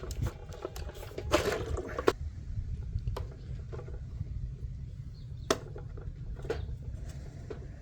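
Hard plastic pool-cleaner parts being handled and worked apart: a short scrape about a second and a half in, then a few separate sharp clicks and taps spread through, over a steady low rumble.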